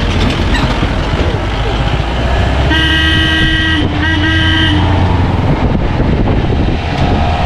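A vehicle horn honks twice, a long blast of about a second and then a shorter one, over the steady rumble of a jeep's engine and the noise of the rough ride.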